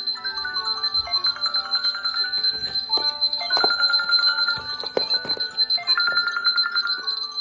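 Mobile phone ringtones and alarm tunes playing: electronic melodies in short stepping notes, with a steady high tone underneath and a few short knocks.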